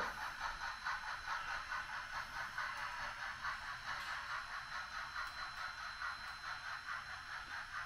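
HOn3 narrow-gauge model train rolling along the track, its wheels and cars giving a steady light rattle and clatter with a pulse of a few clicks a second, as it climbs the grade.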